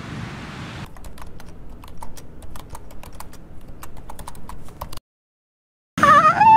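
Computer keyboard typing, a fast irregular run of keystroke clicks lasting about four seconds, laid over text typing onto the screen. It starts after a second of steady noise and cuts off into dead silence. Near the end a person's excited yell rises in pitch.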